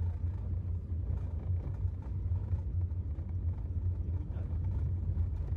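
Low, steady rumble with no distinct events.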